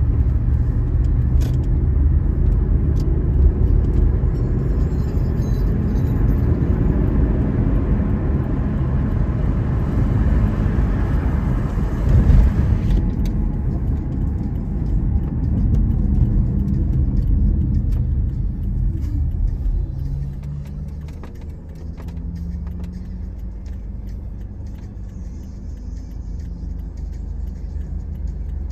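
Car road noise heard from inside the cabin while driving: a steady rumble of tyres and engine that quietens about twenty seconds in as the car slows to a crawl in traffic.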